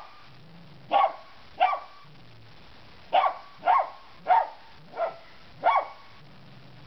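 Cocker spaniel barking at a large cockroach on the ground. Seven short, sharp barks: two about a second apart, then a quicker run of five, roughly one every half second.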